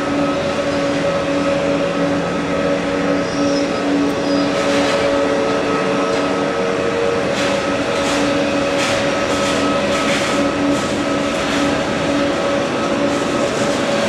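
Rolls-Royce Trent 1000 turbofans of a Boeing 787-8 running at low power as it lines up and rolls slowly on the runway. The sound is a steady, loud engine hum with a whine on top and does not build toward takeoff thrust.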